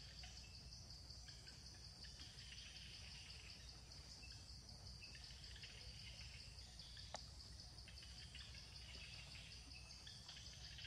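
Faint outdoor ambience: insects chirring steadily at a high pitch, with one sharp click about seven seconds in.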